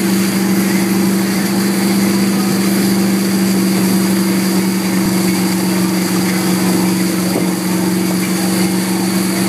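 Tow boat's engine running at a steady speed, a constant low drone with an unchanging pitch, over the rushing hiss of churning wake water.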